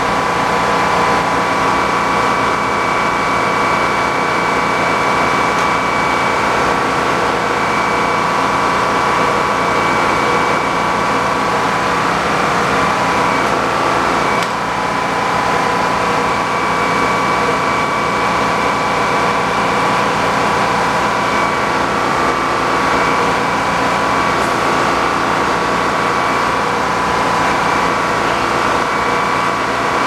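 A sawmill's engine running steadily, with a constant high whine over the engine noise.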